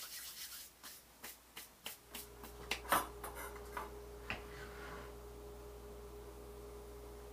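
Hands rubbing and brushing together in quick strokes, then a few knocks as a wooden cutting board with sushi rolls is set down on the counter. A steady low hum with a faint held tone comes on about two seconds in.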